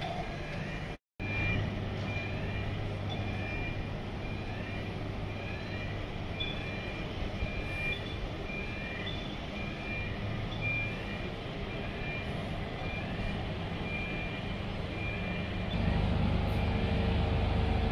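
Steady low hum of a cruise ship under way, with a short rising electronic beep repeating about one and a half times a second. The sound drops out briefly about a second in, and the hum grows louder near the end.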